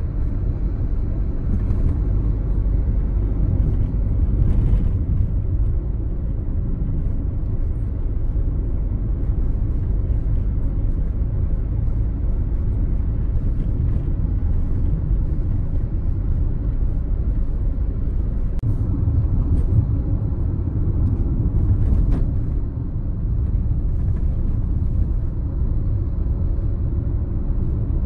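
Road noise heard inside a moving car: a steady low rumble of tyres and engine.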